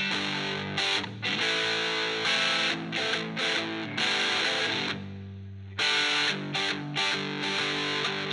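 Gibson Les Paul Studio electric guitar played with a distorted tone through a Phaez Daisycutter pedal: a rock riff of chord stabs broken by short rests. One chord rings out and fades just past halfway before the riff starts again with quick, choppy hits.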